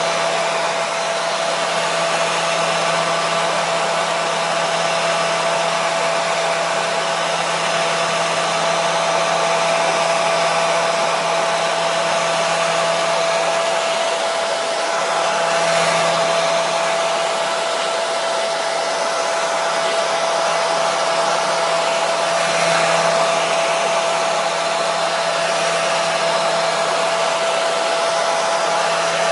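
Hair dryer running steadily: an even rush of blown air with a constant motor hum underneath.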